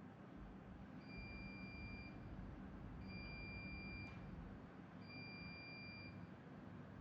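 Three faint, steady electronic beeps, each a little over a second long and two seconds apart, over a low hum.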